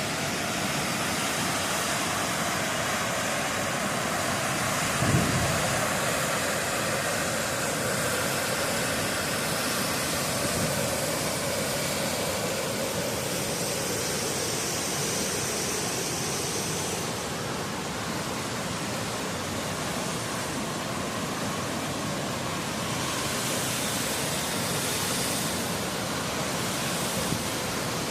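Steady rushing of water pouring through Jackson Lake Dam, an even noise that runs unbroken, with a brief low thump about five seconds in.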